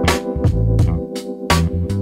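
Background music: sustained keyboard chords over a bass line and a steady drum beat.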